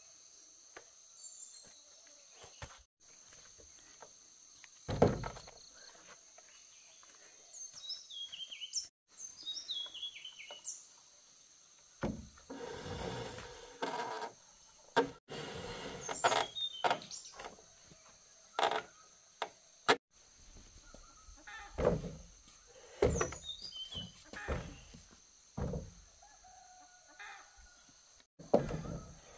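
Birds chirping over a steady high insect drone, broken by a dozen or so sharp knocks and thuds at irregular intervals, the loudest events, with a scraping, rustling stretch around the middle.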